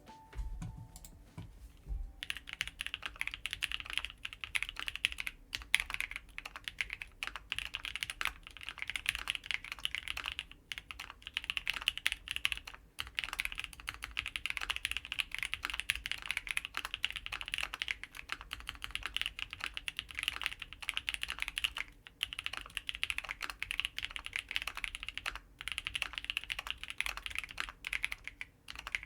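Typing on a custom 65% mechanical keyboard with lubed NovelKeys Cream linear switches, an FR4 plate with full foam, a Vega case and GMK Firefly keycaps: a steady run of key clacks with a few brief pauses, starting about two seconds in.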